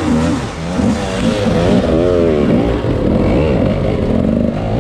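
Dirt bike engines revving hard on a steep climb, the pitch rising and falling again and again as the throttle is worked.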